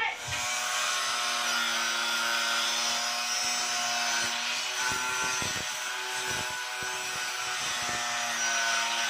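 Angle grinder grinding steel angle bar: a steady whine over the hiss of the disc on the metal.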